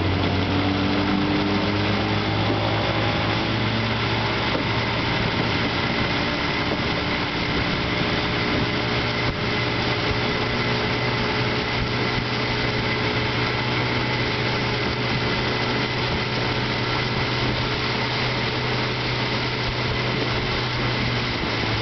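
1956 Johnson AD-10 7.5 hp two-stroke outboard running steadily at speed, pushing a small aluminum boat up on plane. The freshly tuned-up motor runs smoothly, with a steady pitch throughout.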